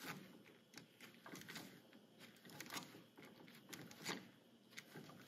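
Faint scattered clicks and scrapes of lineman's pliers gripping and twisting copper conductors, one stranded and two solid, together.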